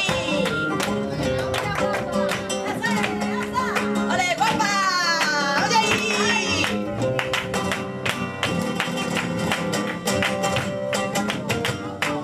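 Live flamenco guitar playing tangos, with dense sharp percussive strikes throughout and a voice gliding through a brief sung call around the middle.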